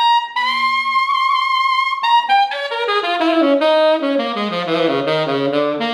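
Ishimori WoodStone New Vintage tenor saxophone played solo: a long high note held for about two seconds, then a quick run stepping down into the low register, settling on a held low note near the end.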